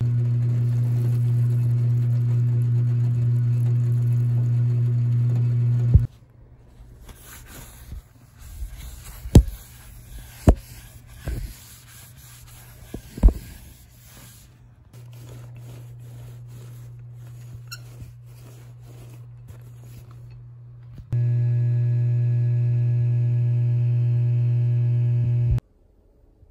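A small electric motor hums steadily, switched on for about six seconds and again for about four seconds near the end. In between there is a fainter hum and a few sharp knocks and rattles of handling.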